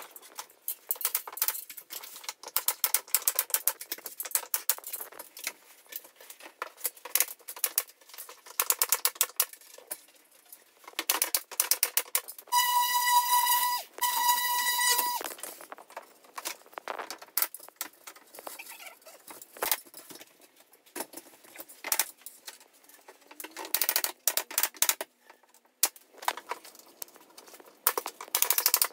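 Work noise from handling boards and trim: a long run of short clicks, taps and rattles. About halfway through, a small power tool whines at a steady pitch for about two and a half seconds, with one brief break.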